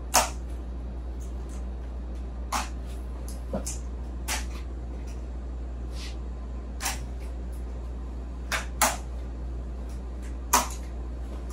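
Pair of aluminium underarm crutches clicking and knocking as they are planted and swung with each step, a sharp click every one to two seconds at an uneven pace, over a steady low hum.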